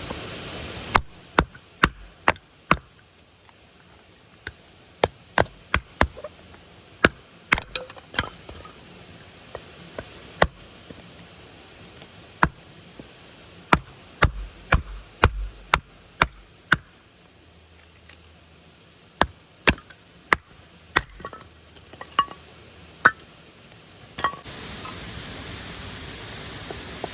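Wood being split and broken for a campfire: irregular sharp wooden knocks and cracks, roughly one a second, with a few heavier thumps around the middle.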